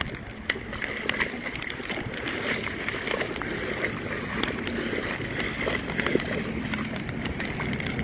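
Heavy rain pouring onto a flooded street: a steady hiss of falling rain and water, dotted with many small taps of individual drops.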